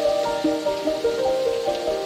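Slow, calm music of held notes following one another in a gentle melody, over a steady hiss of rain.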